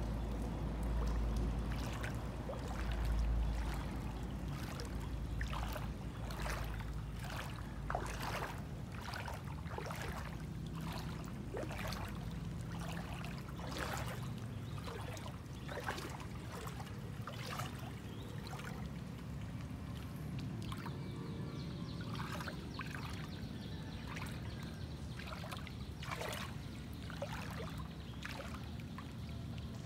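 Floodwater splashing and sloshing as someone moves through it, in short strokes about once a second, with a low wind rumble on the microphone in the first few seconds.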